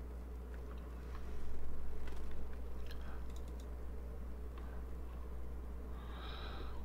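Scattered light clicks and taps from a computer mouse and keyboard, over a steady low electrical hum.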